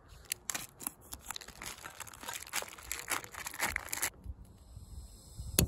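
Plastic sausage packaging crinkling and tearing as it is opened by hand, in a dense run of crackly rustles that stops about four seconds in. A single sharp click follows near the end.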